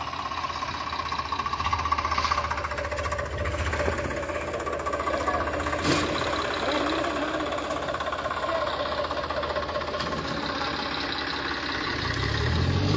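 Three-cylinder diesel engines of a John Deere 5310 and a Swaraj 855 tractor running under load as the two pull against each other on a chain, a steady engine drone.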